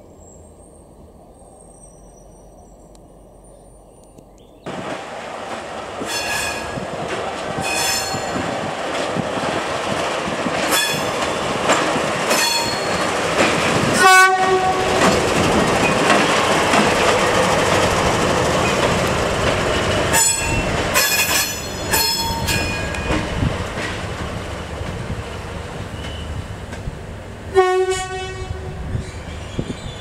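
Vietnam Railways D9E diesel-electric locomotive running close by, with short horn blasts over and over and its wheels clattering on the rails. It is faint and muffled at first, then loud from about five seconds in. The sharpest horn blasts come about fourteen seconds in and near the end.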